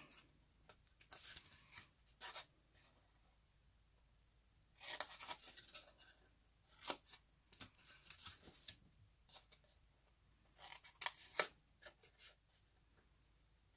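Small scissors snipping through cardstock in four short runs of cuts with quiet pauses between, cutting small squares out of the corners of a scored paper box template.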